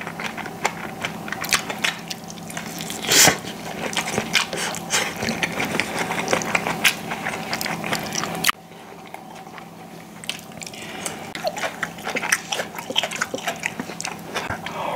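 Close-up eating sounds: biting and chewing battered, pan-fried jeon (Korean pancakes, here shrimp skewer jeon), with many small clicks and one louder bite about three seconds in. The steady background hum drops away suddenly past the halfway point.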